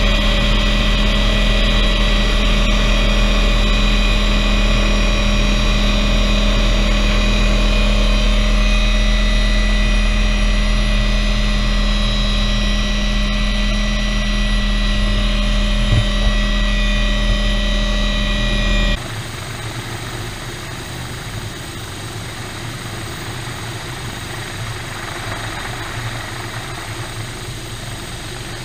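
Helicopter in flight heard from inside the cabin: a loud steady drone of engine and rotor, with a high whine over a low hum. About two-thirds of the way through it cuts abruptly to a helicopter heard from outside, quieter, with a low pulsing beat from its rotor.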